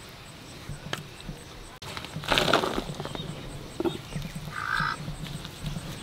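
A crow cawing twice, once about two seconds in and again shortly before the end, over the faint scrape of stingray flesh being sliced on an upright bonti blade.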